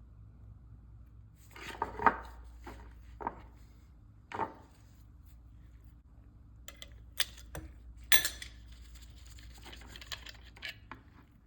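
Metal tools and oil burner parts being handled: a series of separate clinks, taps and short scrapes of metal on metal, scattered and irregular, over a steady low hum.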